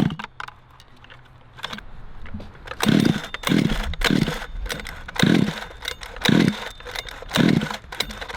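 Redcat 1/5-scale RC truck's two-stroke gas engine being pull-started: after a quiet start come six short bursts of the engine turning over, roughly a second apart, without it catching.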